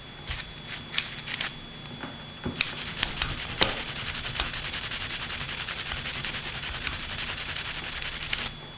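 A few light taps, then from about two and a half seconds in, steady scratchy scrubbing of a brass wire brush worked back and forth over a SIG P226 pistol frame to loosen stubborn fouling residue.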